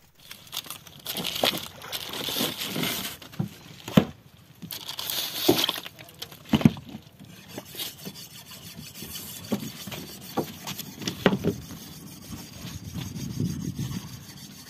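Irregular knocking, scraping and rubbing from handling things on a wooden boat deck and in a styrofoam cooler of fish and ice, with a few sharp knocks among them.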